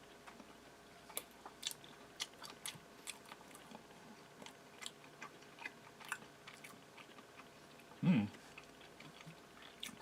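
A person chewing a mouthful of peanut butter and raspberry jam, with many small wet mouth clicks, and a brief hum from the throat about eight seconds in.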